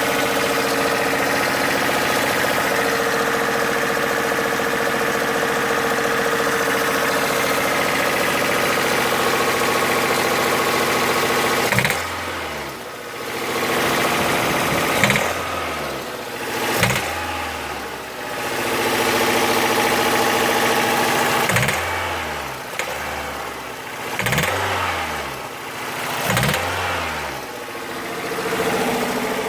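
Toyota 4A-FE inline-four engine held at raised revs for about twelve seconds, then blipped about six times, each rev rising sharply and falling back toward idle. The owner hears a knock that comes in with revs and cannot identify its cause.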